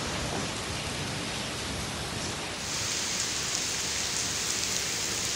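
Monsoon rain falling: a steady hiss, which turns brighter about two and a half seconds in.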